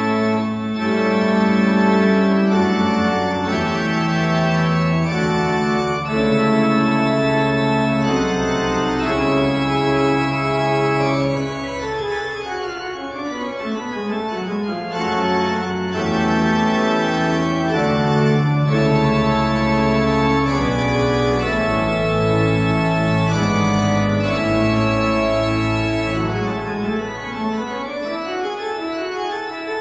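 Organ music: slow sustained chords, with a descending run of notes in the middle and an ascending run near the end.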